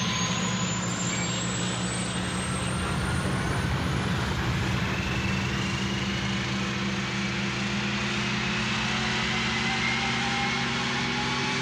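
Sci-fi spaceship engine sound effect: a steady low hum under a rushing noise, with several high whines climbing slowly in pitch, like a ship powering up.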